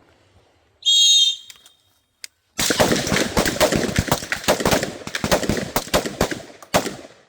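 An electronic shot-timer beep about a second in, then a line of rifles firing a rapid, overlapping string of many shots for about four and a half seconds.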